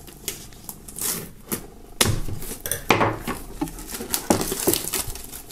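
Plastic shrink-wrap film being slit with a knife and pulled off a cardboard box, crinkling and crackling in a quick run of sharp clicks and rustles. The loudest crackles come about two and three seconds in.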